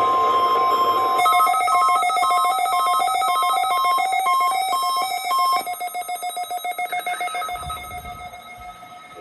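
Weather radio alert tones: the steady NOAA Weather Radio warning alarm tone ends about a second in, then rapid pulsing electronic alert beeps, several tones interlocking with a fast telephone-ring-like warble, stop about five and a half seconds in and fade away.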